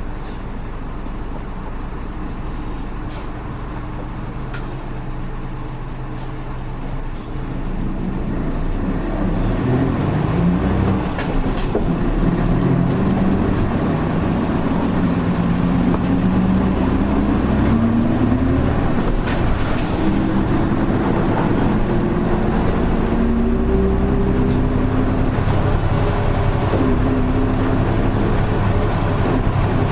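Diesel engine of a PKG-RA274MAN city bus, heard from inside the cabin, idling and then pulling away. Several seconds in it gets louder and the engine note rises in pitch, drops and rises again through a few gear changes. The engine has an unusual sound that sets it apart from other buses of the same model.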